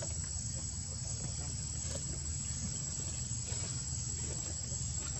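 Steady high-pitched chorus of insects, with a constant low rumble underneath.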